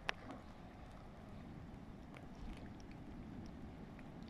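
Faint, steady low rumble of wind on the microphone, with one sharp click just after the start and a few faint ticks later.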